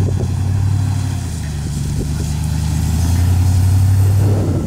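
Chevy Tahoe driving slowly, heard from outside: a deep, steady low rumble that shifts between two low pitches, weakening about a second in and swelling again about three seconds in.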